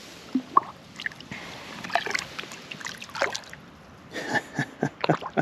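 Shallow creek water splashing and trickling in small, irregular bursts.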